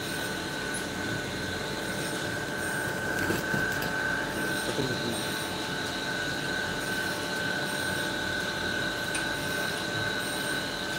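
Tool and cutter grinder running, its grinding wheel giving a steady high-pitched whine as a 45° chamfer bit's cutting edge is ground against it.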